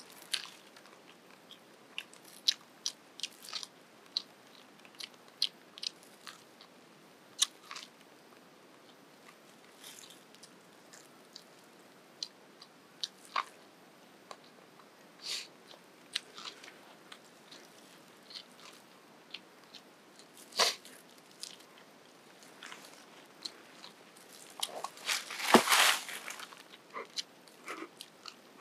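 Scattered sharp crackles and clicks as the charred husk is pulled off a grilled ear of corn, then biting and chewing the corn kernels, with a louder burst of crunching near the end.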